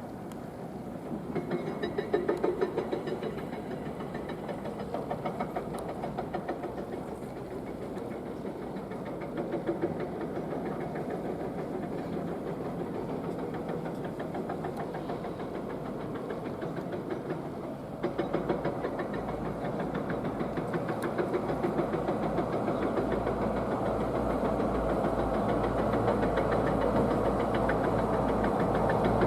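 Excavator running its hydraulic rock breaker, a rapid run of hammer blows over the diesel engine. About eighteen seconds in the sound changes abruptly, then grows louder with a deeper rumble.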